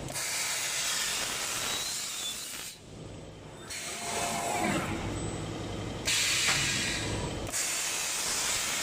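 Vertical CNC grooving machine cutting grooves into sheet metal with its four knives: a steady, hissing scrape in long passes, broken by a short pause about three seconds in.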